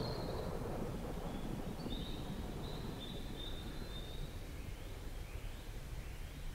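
Distant rumble of a Boeing 737-400's CFM56 jet engines as it rolls out after touchdown, dying away over the first second or two. Birds chirp over the low background rumble, with a few rising calls near the end.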